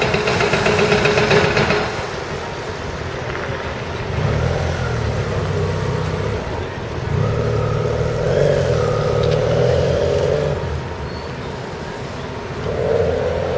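Motor vehicle engines running in city street traffic. There is a loud noisy rush for the first couple of seconds, then a low engine hum that swells and fades a few times.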